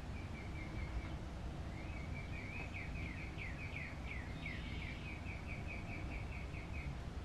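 A small songbird singing outdoors, faint: a short trill, then a run of quick down-slurred notes that turns into a long, even trill, over a steady low hum.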